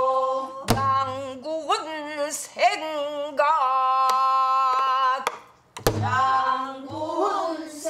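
A woman singing pansori, holding long notes with a wide, wavering vibrato. She accompanies herself on a buk barrel drum, with deep strokes about a second in and again near six seconds, just after a short pause in the singing.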